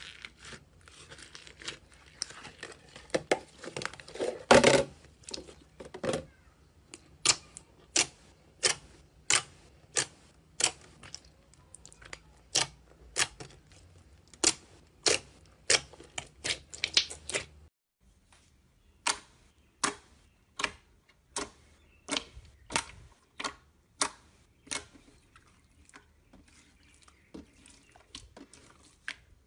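Slime being pressed and poked, giving a series of short sharp pops and crackles about one or two a second, denser and crackly in the first few seconds.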